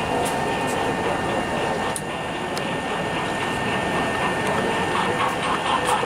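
H0-scale model of an ST44 diesel locomotive hauling freight wagons past, running with a steady mechanical diesel-engine sound. A regular beat of about four to five strokes a second comes up near the end as it draws closer.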